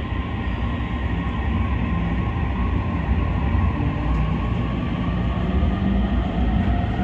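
Inside an E231-series electric train pulling away from a station: a steady low rumble of the running gear with a faint motor whine from the VVVF inverter and traction motors, which begins to climb in pitch near the end as the train gathers speed.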